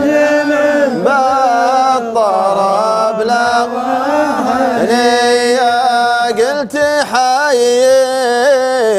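A man's voice singing a samri, a Najdi folk song, drawing one syllable out into a long melisma: held notes that bend and slide up and down between the lines of the verse.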